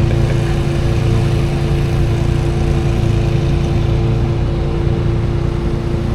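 An engine running steadily at a constant speed, with an even hum that holds the same pitch throughout.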